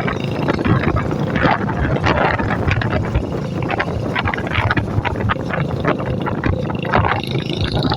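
Royal Enfield motorcycle engine running on the move, with wind buffeting the microphone.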